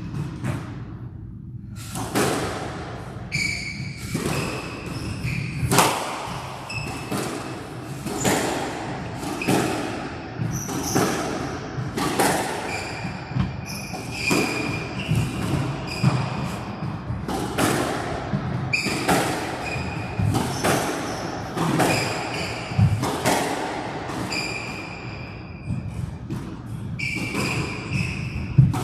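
Squash rally: the ball is struck by rackets and smacks off the walls about once a second, with shoes squeaking on the court floor between shots.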